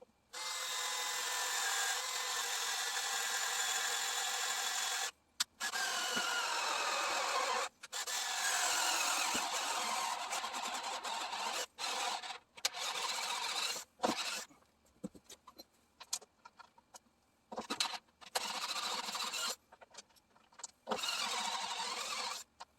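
A handheld power tool run in bursts: a long run of several seconds, its pitch sliding down as it slows, then shorter stop-start runs with brief pauses between them.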